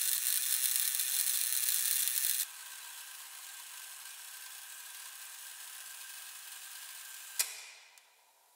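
Wooden clockwork automaton's gear train running with a steady high whirring, quieter after about two and a half seconds. About seven seconds in there is a sharp click, and the whirring dies away.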